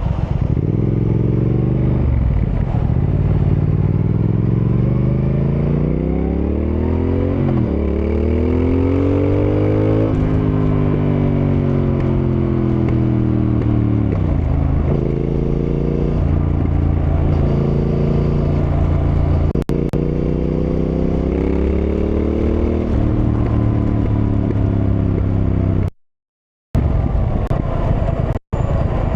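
Triumph Thruxton R's 1200 cc parallel-twin engine under way, revs climbing then dropping sharply several times as it shifts through the gears, then holding fairly steady. The sound cuts out completely twice for a moment near the end.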